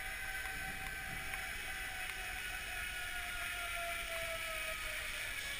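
Zip line trolley pulleys rolling along the steel cable: a steady whine that slowly falls in pitch as the incoming rider slows.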